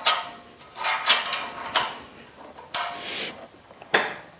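A 13/16-inch wrench clinking on a bolt head as the bolt is tightened a turn at a time, each clink ringing briefly. The bolt presses the hydraulic valve body into the pump casting.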